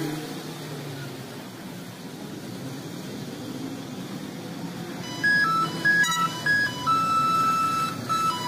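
Low, steady running rumble of a streetcar on its rails. About five seconds in, a louder, simple electronic melody starts, with clear held notes stepping between a few pitches.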